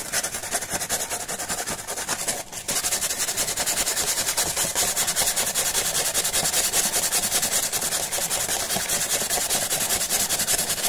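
Sandpaper rubbed in rapid strokes against the cut rim of a glass bottle, with a brief pause about two and a half seconds in. It is the sound of smoothing the sharp cut edge of the glass.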